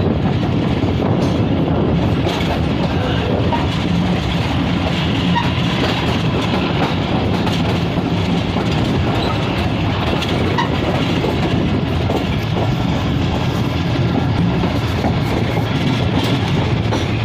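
Moving passenger train: a steady, loud rumble of the carriage and wheels on the track, with some rail clatter.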